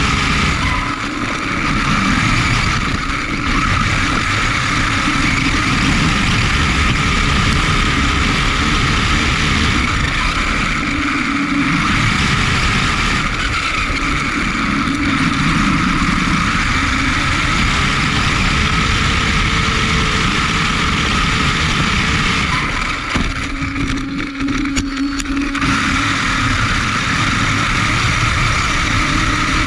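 Onboard sound of an HSP XSTR Pro electric RC car, running on a 3-cell LiPo, driving over grass: a steady high-pitched whine from the electric motor and drivetrain over a rush of wind and grass noise. The whine eases briefly about three-quarters of the way through.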